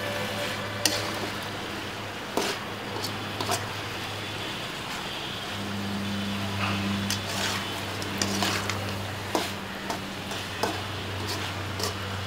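A metal spatula scraping and knocking against an aluminium kadai as chicken pieces are stirred and fried, giving scattered sharp clicks and scrapes over a light sizzle and a steady low hum.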